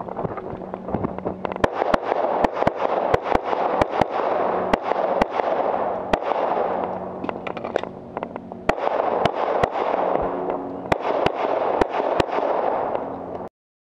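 Semi-automatic pistol firing a long course of fire: rapid pairs and short strings of shots with brief pauses between them. The sound cuts off suddenly near the end.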